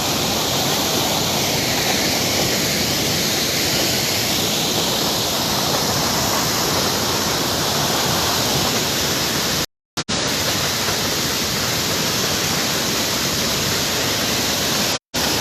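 Steady rush of the Malacatiupan waterfall, close by. The sound cuts out completely for a moment twice, about ten seconds in and near the end.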